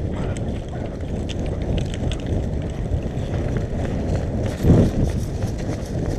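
Footsteps and rustling, rattling gear close to an action camera's microphone as a player moves, with a louder thump about five seconds in.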